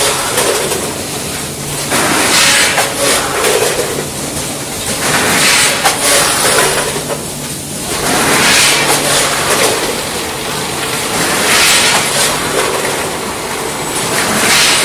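Automatic food packaging line running: a multi-head weigher and its feed conveyor give a steady mechanical hum, with a burst of hiss and rattle about every three seconds as the machine cycles.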